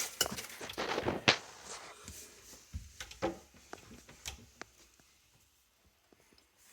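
Scattered light clicks and knocks from plastic sink drain parts being handled, thinning out and stopping about five seconds in.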